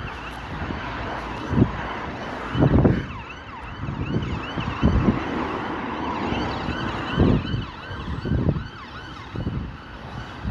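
Emergency-vehicle siren in yelp mode, its pitch swooping up and down about three times a second, faint over traffic noise. Several low thumps on the microphone break in, the loudest about 3 and 5 seconds in. The siren fades out about two-thirds of the way through.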